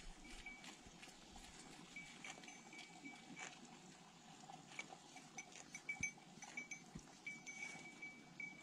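Faint clinking of a cowbell on grazing cattle: short runs of small high ringing tones, with a couple of sharper knocks about six and seven seconds in.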